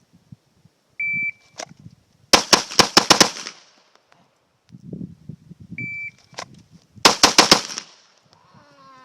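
Shot timer beeps, then a handgun fires a rapid string of shots, several a fraction of a second apart. The sequence happens twice: beep, one crack, then a fast burst of about six shots.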